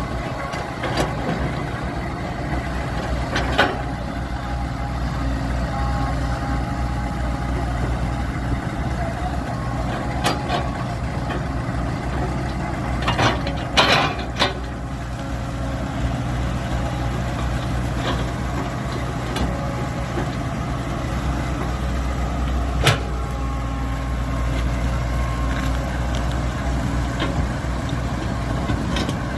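Diesel engine of earthmoving machinery running steadily, with a few sharp metallic knocks, the loudest cluster about halfway through.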